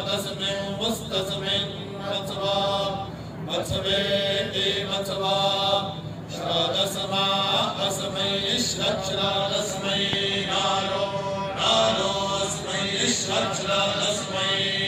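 A group of men chanting Vedic Sanskrit mantras together in phrases of a second or two, with short breaks between them.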